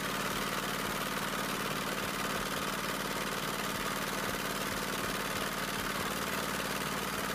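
Steady drone of a small engine running, even and unchanging throughout.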